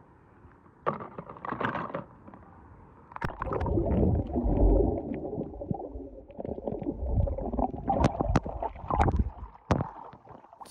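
Water sloshing and splashing around a hand and a small plastic tub, with scattered clicks and knocks of die-cast toy cars being handled. It starts about a second in and is busiest from about three seconds in.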